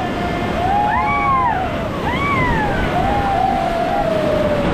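Whitewater rushing loudly around a river raft running a rapid, with the rafters whooping and yelling over it: several short rising-and-falling cries and one long held cry.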